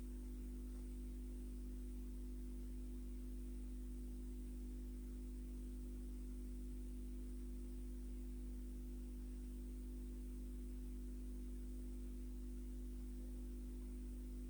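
Steady low electrical hum with no music, unchanging throughout.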